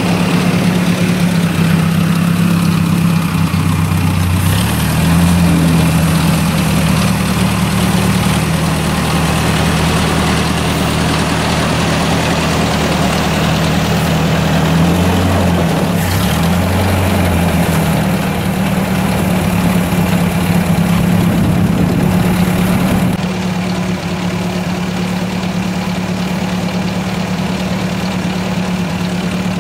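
1956 Ford tractor engine running steadily, changing speed a couple of times, then settling to a quieter, even idle for the last several seconds.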